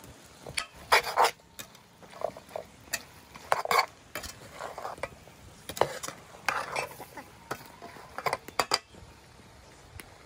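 A metal ladle stirring pig intestines and eggplant pieces in an aluminium cooking pot: irregular scrapes and knocks of metal against the pot and the food being turned over, the strokes stopping near the end.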